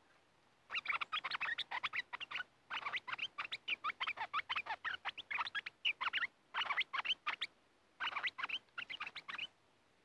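Stripe-throated bulbul giving rapid, harsh chattering calls in dense bursts, with short breaks between runs.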